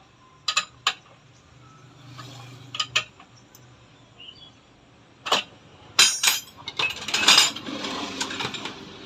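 Metal tools and parts clinking and knocking in separate sharp strikes, a quick cluster of louder hits about six seconds in, then a rough scraping clatter near the end.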